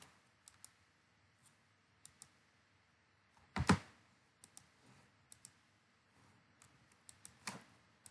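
Scattered faint clicks of a computer mouse and keyboard, mostly in quick pairs, with a louder thump a little past three and a half seconds in and a smaller one near the end.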